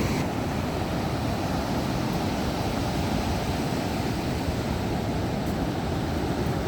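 Steady rush of ocean surf on the beach, an even noise with no distinct breaks or events.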